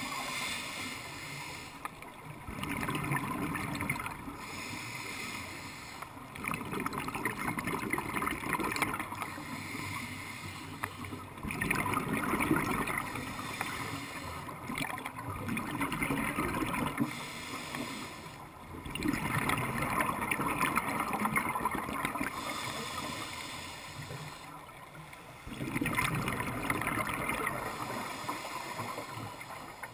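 Scuba regulator breathing heard underwater: a hiss with each inhalation alternating with the gurgling rush of exhaled bubbles, in a slow rhythm of breaths every few seconds.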